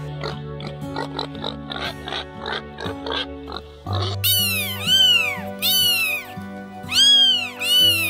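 Pigs grunting and squealing over steady background music: a run of short quick grunts, then four loud squeals that rise and fall, starting about halfway through.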